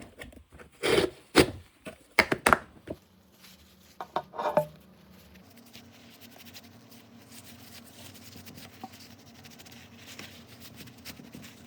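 Handling and rubbing sounds of combination pliers being cleaned: several sharp knocks and scrapes in the first five seconds, then faint, steady scratchy rubbing.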